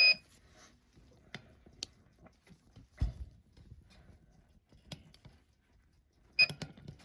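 Electronic beeps from a watch timegrapher being switched on and set up: a short high two-tone beep at the start and another near the end. Between them come small irregular clicks of handling and a soft thump about three seconds in.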